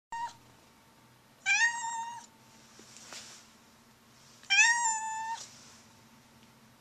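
Blue point Siamese cat meowing: a brief call right at the start, then two long, level-pitched meows about three seconds apart.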